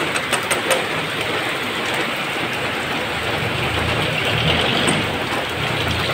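Heavy rain pouring onto a wet street, a steady hiss, with a few sharp close taps in the first second. A motor vehicle's engine rumbles low under the rain from about halfway through.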